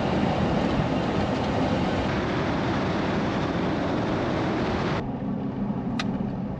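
Pickup truck driving on a rough dirt road: steady tyre and road noise heard from inside the cab. About five seconds in it cuts to a quieter, smoother engine and road hum with one sharp tick.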